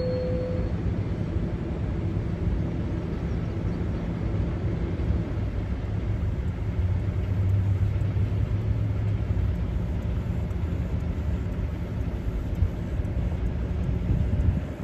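Low, steady rumble of approaching Norfolk Southern diesel locomotives in the distance, swelling slightly midway. A thin high squeal stops just after the start.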